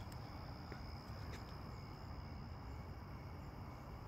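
Crickets trilling steadily in a high, even tone, over a low, constant rumble.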